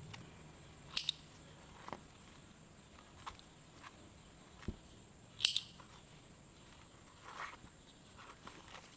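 Faint handling sounds of a fabric coin pouch and a pair of thread snips: scattered small clicks and taps, the loudest about five and a half seconds in, with a soft thud and light rustling.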